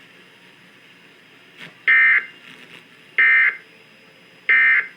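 Emergency Alert System end-of-message signal: three short, buzzing bursts of digital data tone, each about a third of a second long and roughly 1.3 seconds apart, marking the end of the alert.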